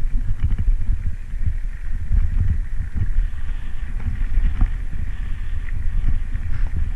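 Wind buffeting the microphone of a bicycle-mounted camera on a fast downhill ride: a loud, irregular low rumble with frequent short jolts.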